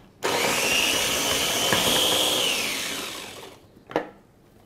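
Electric mini food chopper running, its blade chopping young ginger in a little water into a coarse paste. The high motor whine starts suddenly, holds steady for about two seconds, then falls away as the motor spins down, followed by a single short click.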